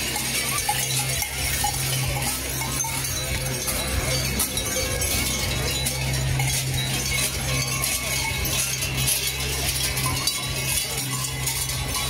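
Large cowbells worn by Krampus figures clanging continuously as they run, with a steady low hum beneath.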